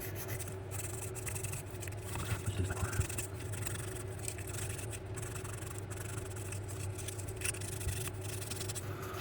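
Emery cloth being rubbed over the wheels of a model locomotive to take off old grime: a soft, irregular scraping with small ticks, over a steady low hum.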